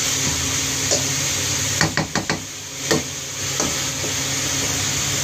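Chopped cuttlefish sizzling in a frying pan, with a metal ladle knocking against the pan: a quick run of four knocks about two seconds in and one more shortly after.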